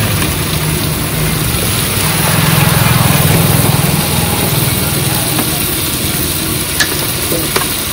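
Steady low mechanical drone, like a motor running, with two brief sharp clinks near the end.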